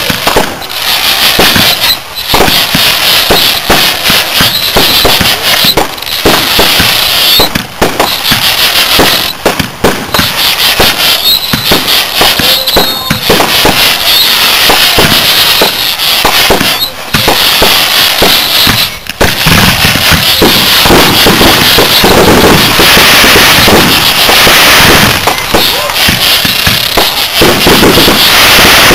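Aerial firework shells bursting in rapid succession with dense crackling, loud throughout. After about twenty seconds the bursts merge into a thicker, nearly continuous barrage.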